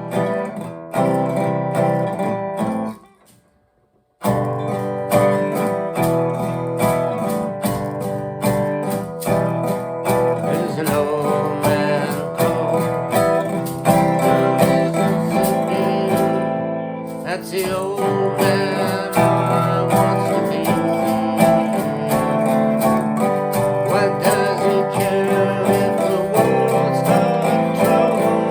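Guitar-led music with plucked and strummed strings, which breaks off to near silence for about a second about three seconds in and then starts again.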